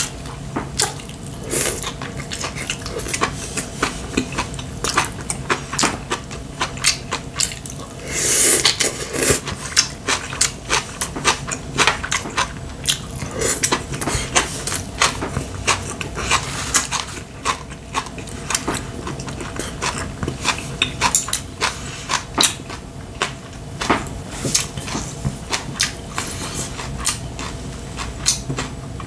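Close-up eating sounds: a person chewing and smacking on food, with many short clicks of chopsticks and dishes, and a louder, longer stretch of noise about eight seconds in.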